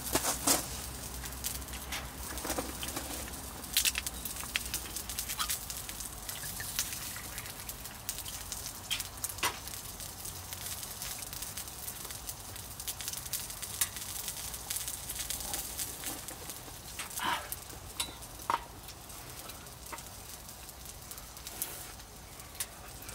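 Pork belly sizzling on a hot iron grill plate: a steady hiss of frying fat with frequent sharp pops and spatters.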